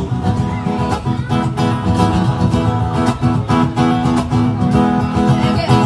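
Acoustic guitar strummed in a steady rhythm, playing chords in an instrumental passage with no singing.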